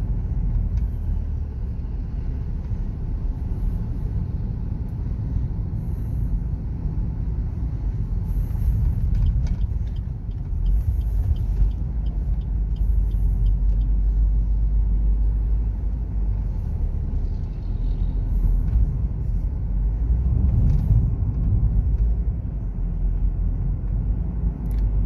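A car driving along a city road, heard from inside the cabin: a steady low rumble of engine and tyre noise, with a few faint ticks partway through.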